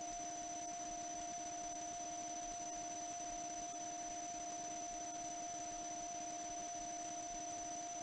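Steady electronic-sounding hum and hiss, with a few constant pitched tones that do not change.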